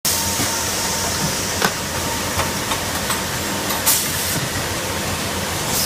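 Automated assembly machine running amid steady machine noise, with a few sharp clicks and two short bursts of air hiss, about four seconds in and near the end, typical of pneumatic cylinders exhausting.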